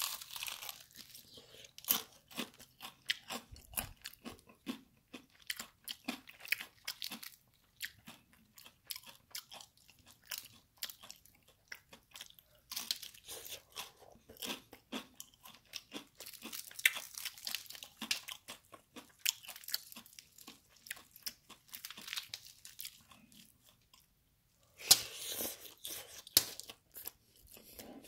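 Chewing and crunching of crispy fried chicken breading, a dense run of crunches with a short pause about three-quarters through and a loud flurry just after it.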